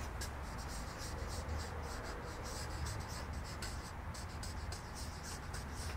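Marker pen writing on a paper flip chart pad: a quick run of short scratchy strokes, over a steady low room hum.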